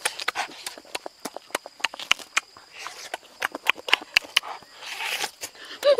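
Close-up chewing and lip-smacking of people eating roasted beef ribs: rapid, irregular smacking clicks with a few short slurps.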